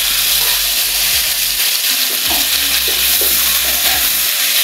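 Potato cubes and chopped tomato frying in oil in a nonstick kadai, with a steady sizzle, while a spatula stirs and scrapes through them now and then.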